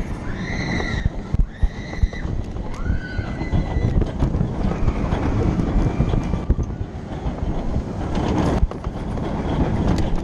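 Riders screaming on a suspended roller coaster: three short, high-pitched cries that rise and fall within the first three seconds. Underneath is the steady rumble and rattle of the coaster train running along its track.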